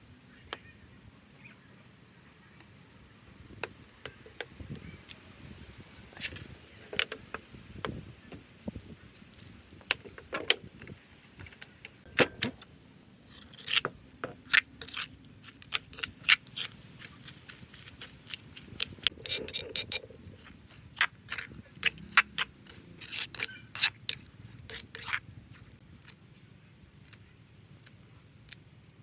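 Metal spoon clinking and scraping against a stone mortar, in many short, irregular clicks that come thickest in the middle stretch.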